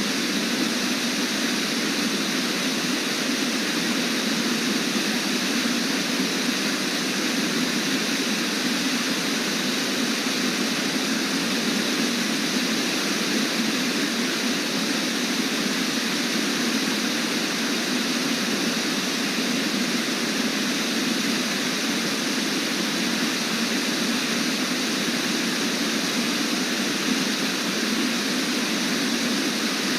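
Brooks Falls pouring in a steady, unbroken rush of water.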